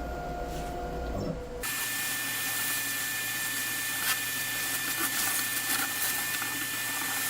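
CNC router spindle running with a steady high whine over the hiss of the bit cutting wood, with scattered ticks. It sets in abruptly about a second and a half in, replacing a lower, steadier motor hum.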